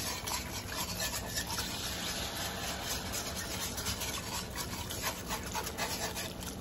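Wire whisk scraping fast and steadily against a cast iron skillet, stirring water into clumpy, thickening pan gravy.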